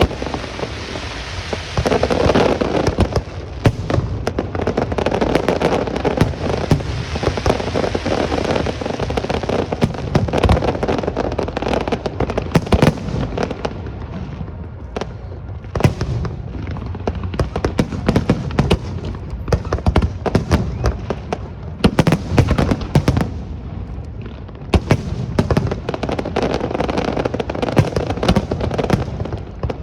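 Fireworks display: a rapid, continuous barrage of bangs and crackling shell bursts, thinning briefly about halfway through and again near the end before picking up.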